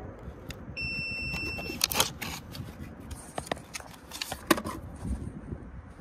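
Clicks and rustles of a new dual run capacitor being handled and slid out of its cardboard box, with a single electronic beep lasting about a second, about a second in.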